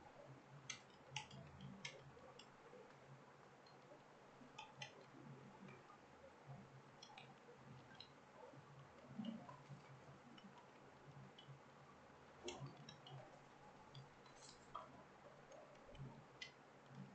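Faint, irregular clicks of keys being typed on a computer keyboard, over a faint low hum.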